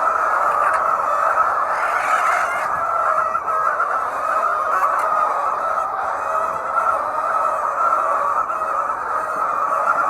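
A large flock of hens in a poultry house, their many calls blending into one dense, steady din.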